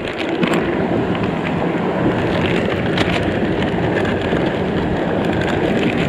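Steady rushing of a forest river's flowing water.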